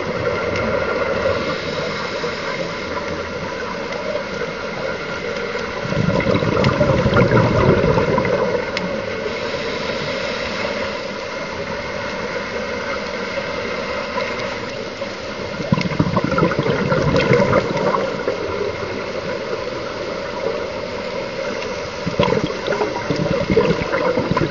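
Scuba diver's regulator heard underwater: a steady watery gurgling rush with three louder bursts of exhaled bubbles.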